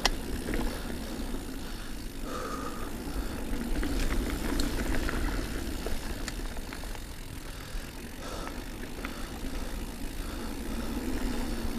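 Diamondback Release 3 mountain bike ridden uphill on dirt singletrack: a steady low rumble of tyres on the trail with scattered clicks and rattles from the bike.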